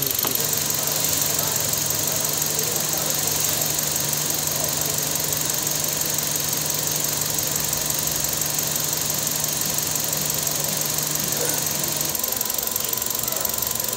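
2012 Kia Rio engine idling steadily on its first run after a cylinder head gasket replacement. A steady low hum in the engine sound drops out about twelve seconds in.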